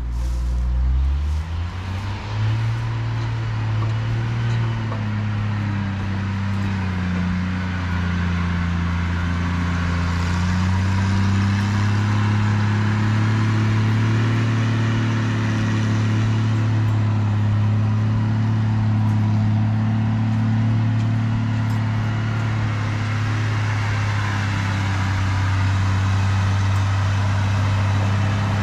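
A vehicle engine running steadily, picking up speed about a second in, then holding at a fairly even pitch with small rises and falls.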